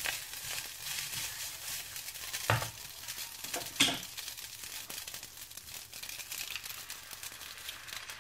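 Spaghetti with mushrooms and onion sizzling in hot oil in a frying pan, a steady crackling hiss, with two sharp knocks about two and a half and four seconds in. The sizzle grows fainter toward the end as cream is poured into the pan.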